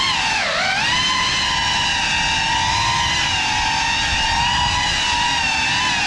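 GEPRC Cinelog 35 cinewhoop's brushless motors and ducted propellers whining in flight. The pitch dips and climbs back about half a second in, then holds nearly steady.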